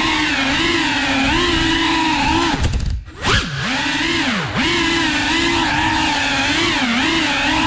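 FPV quadcopter's brushless motors whining, the pitch rising and falling constantly with the throttle. About three seconds in the throttle chops and the whine drops away briefly, then swoops back up, with another quick dip a second or so later.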